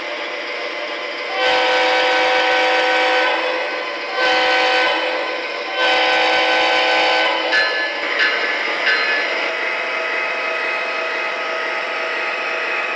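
Proto-Sound 3.0 sound system of an MTH O-scale GE AC44C6M diesel locomotive playing from its onboard speaker: three horn blasts, long, short, long, over a steady diesel engine sound. The horn is followed by three short sharp clanks, then the engine sound alone.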